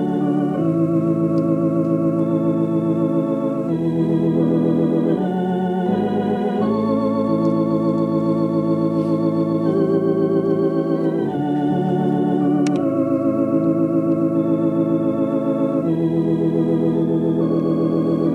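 Organ playing a slow hymn for the altar invitation, in held chords with a slight vibrato that change every second or few.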